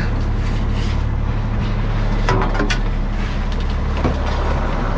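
Fishing boat's engine running with a steady low drone, with a few short knocks about halfway through and again near the end.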